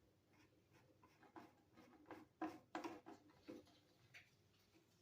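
Faint clicks and light knocks of small parts being handled and unplugged by hand during a teardown, a few scattered taps with the two loudest about halfway through.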